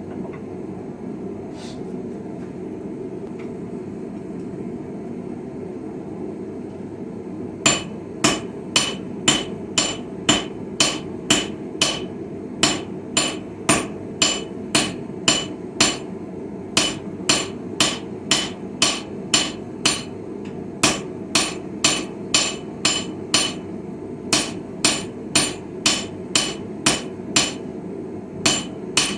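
Hand hammer striking steel on an anvil while forging a chisel: no blows for the first seven seconds or so, then a steady run of ringing strikes at about two a second, broken by brief pauses. A steady hum continues underneath.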